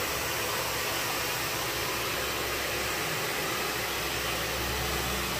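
A steady, even hiss, with a low hum joining it near the end.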